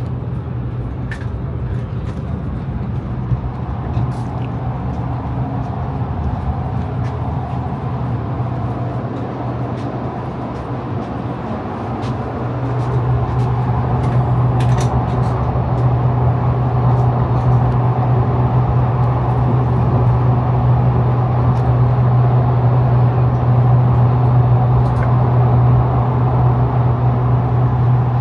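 Steady running rumble of an Iryo Frecciarossa 1000 high-speed train heard from inside the carriage, with a strong low hum. It grows louder about twelve seconds in, with a few faint clicks over it.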